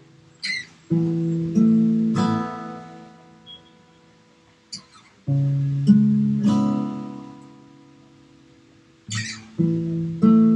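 Acoustic guitar strummed in slow chords: three times a pair of strums is left to ring and fade for a few seconds before the next. A short scratchy scrape on the strings comes just before each pair.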